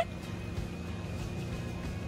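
Soft background music with held notes.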